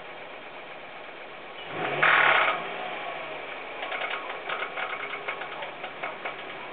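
Hyundai Coupe engine running, briefly revved about two seconds in, then settling into a rhythmic knock of a few beats a second. The knock comes from a distorted connecting rod.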